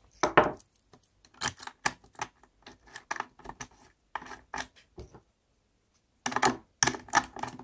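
Small metal clicks and clinks as hex nuts and metal series busbars are handled and fitted onto the threaded terminal studs of a plastic-cased 21700 battery module pack. The clicks come in irregular clusters, with a short pause a little past the middle.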